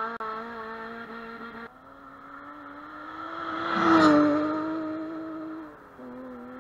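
Rally car passing at speed: the engine note grows to its loudest about four seconds in, drops in pitch as the car goes by, then fades away. The tail of a previous car's engine dies away at the start.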